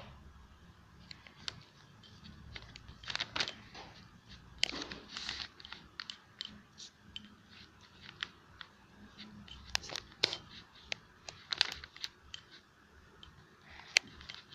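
Homemade slime being mixed: irregular sticky clicks and crackles, with a few longer scraping squelches.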